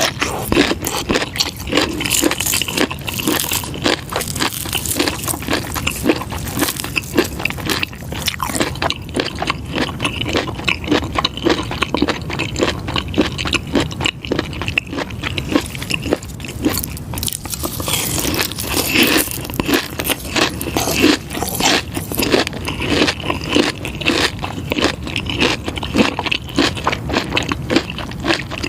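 Pickled fish skin being bitten and chewed, a dense, continuous run of crisp crunches.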